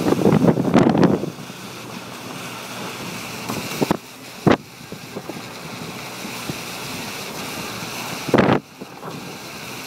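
Car driving on a rain-wet street: a steady hiss of tyres on wet pavement, with wind buffeting the microphone in the first second and again briefly near the end. A sharp click comes about halfway.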